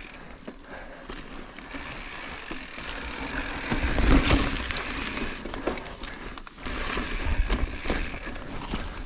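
A 2020 YT Izzo mountain bike ridden over slickrock and a rocky dirt trail: tyres rolling and crunching, with small clicks and rattles from the bike. A low rumble on the microphone swells about four seconds in and again around seven seconds.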